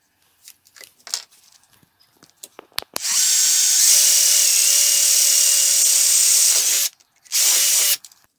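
Cordless drill boring a hang hole through a wooden spatula handle clamped in a vise. It runs steadily at one speed for about four seconds, stops, then runs again briefly a moment later, after a few light handling knocks at the start.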